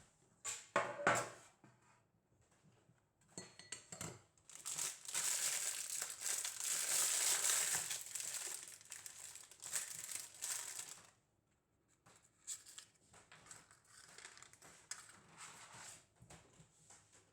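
Crinkling and rustling of something being handled. There are a few sharp rustles in the first seconds, then a steady, dense crinkling for about six seconds, then lighter scattered rustles and ticks.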